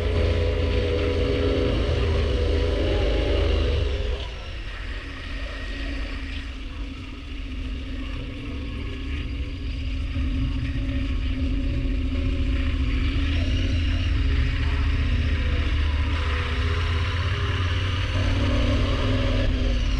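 KTM 1190 Adventure R's V-twin engine running under way. The engine eases off about four seconds in and picks up again around halfway.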